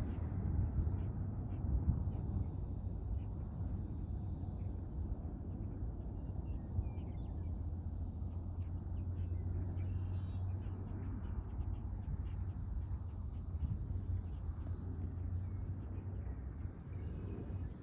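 Insects chirping in a steady, rapid, evenly spaced pulse, with scattered short ticks, over a low steady rumble.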